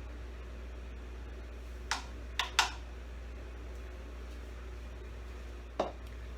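Four short clicks of a serving utensil against a dish during plating: three close together about two seconds in and one near the end, over a steady low hum.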